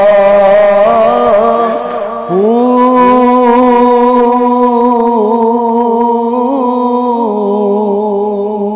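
A man singing a Punjabi Sufi kalam, drawing out the end of a line in long held notes with slight wavers. The note breaks off briefly about two seconds in, is taken up again and held, then steps down in pitch near the end.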